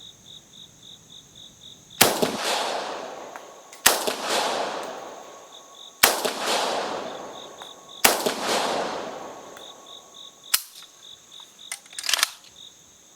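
Bulgarian AK-74 firing 5.45×39 mm rounds single shot at a slow pace: four loud shots about two seconds apart, each with a long fading echo, then a few shorter, weaker cracks near the end. The ammunition is 1979 Soviet 7N6 surplus, which the shooter believes is breaking down with age and giving soft loads. Crickets chirp steadily in the background.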